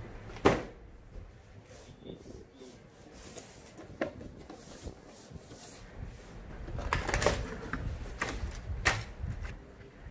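A cardboard box and an RC crawler being handled on a table during unboxing. There is a sharp knock about half a second in, then rustling, scraping and knocks as the box is opened and the contents are handled, with a cluster of louder knocks toward the end.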